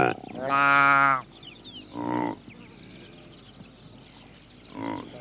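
Saiga antelope calling: a long call in the first second, a shorter one about two seconds in, and a brief one near the end.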